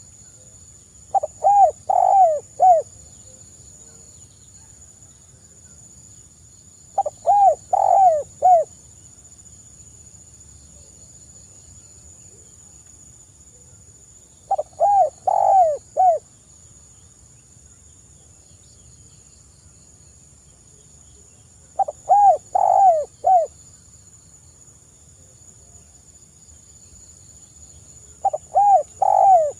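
Spotted dove cooing: five phrases of four or five quick notes each, about every seven seconds. This is the call that keepers play to set other spotted doves calling.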